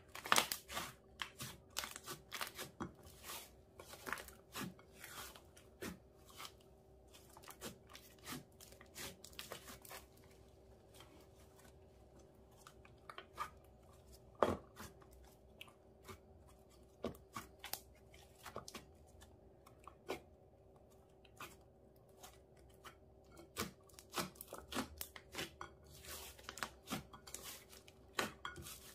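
Thick glittery slime being kneaded, stretched and squashed by hand in a glass dish: a constant run of sticky clicks, crackles and small pops, with one louder pop about halfway through. A faint steady hum sits underneath.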